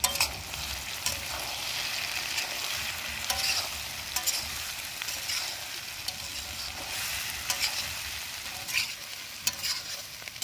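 Fried soya chunks, vegetables and freshly added ground spices sizzling in a hot kadai while being stirred. Irregular scrapes and knocks against the pan sound over a steady frying hiss.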